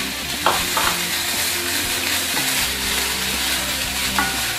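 Freshly added chopped onion sizzling steadily with garlic in hot olive oil in a frying pan, stirred with a wooden spoon.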